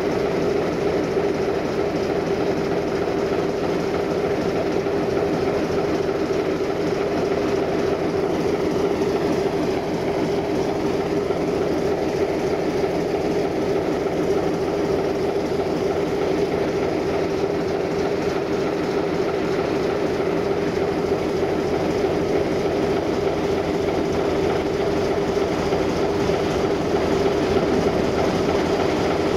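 Diesel-hauled passenger train running along the line, with a steady hum at an even level throughout.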